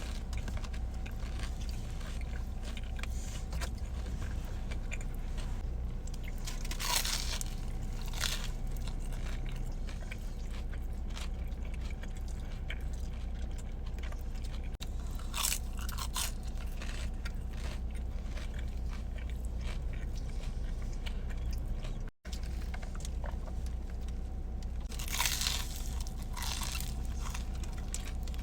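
Close-miked eating: chewing with crunchy bites into toasted chalupa shells, a handful of louder crunches standing out over a steady low hum.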